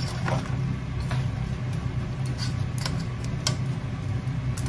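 A steady low mechanical hum, with a few light clicks of wooden chopsticks against a pot as chunks of pork hock are turned in their marinade.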